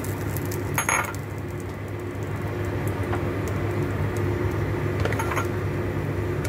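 Steady electric hum of a kitchen appliance, with a short clatter about a second in and a fainter one about five seconds in.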